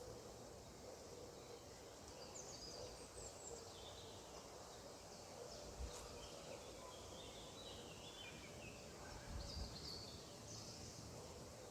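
Birds chirping faintly in short twittering phrases that come and go, over a steady background hiss. There are two soft low bumps, one about halfway through and one later on.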